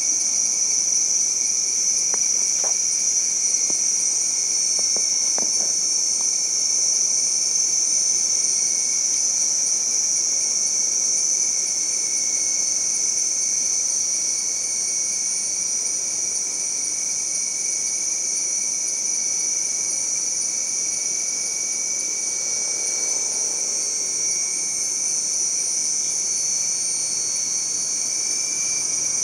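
Rainforest insect chorus: many insects droning steadily at several high pitches at once. A few faint ticks come through between about two and six seconds in.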